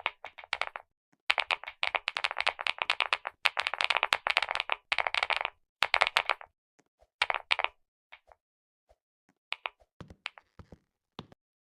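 Clicky keyboard switches pressed in fast runs, a dense stretch of sharp clicks lasting about four seconds, then shorter scattered bursts of clicks.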